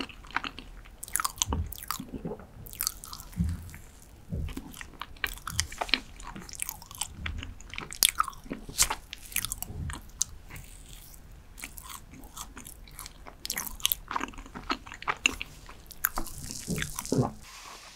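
Mouth sounds of eating soft dark chocolate cheesecake: chewing with irregular wet smacks and clicks, and a wooden spoon scooping into the cake now and then.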